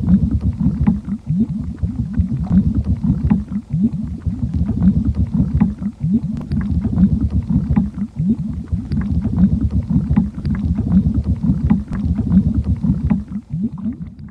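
A low, continuous bubbling rumble, full of short rising gurgles several times a second.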